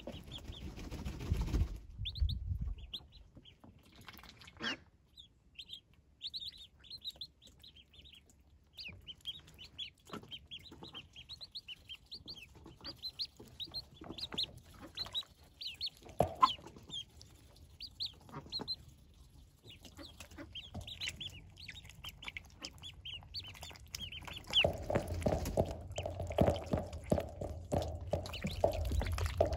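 Six-day-old Welsh Harlequin ducklings peeping: many short, high chirps repeated in quick, irregular runs, with scattered small clicks. A louder, lower noise comes in over the last few seconds.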